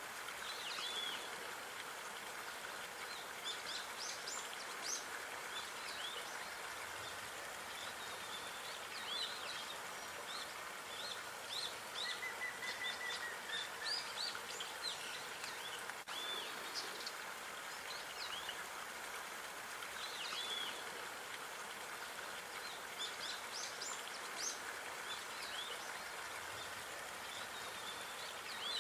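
Small songbirds chirping with many short, separate calls throughout, over a steady outdoor background hiss. Near the middle, one even note is held for about two seconds.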